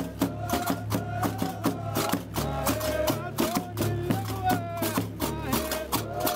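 Iron castanets (qarqabu) clattering in a quick, steady rhythm with a large double-headed drum struck with a stick, under men's voices singing a chant.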